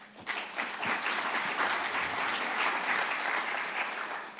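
Audience applauding, starting just after the start and dying away near the end.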